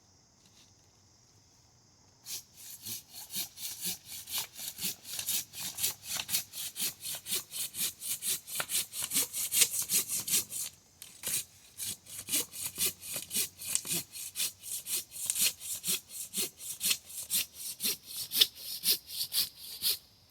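Hand saw cutting through wood in quick, even strokes, about three a second. It starts about two seconds in, breaks off briefly about eleven seconds in, and stops just before the end.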